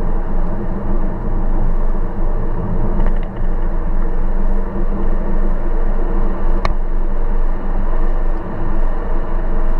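Car engine running at steady revs with road rumble as the car is driven along. There is a single sharp click about two-thirds of the way through.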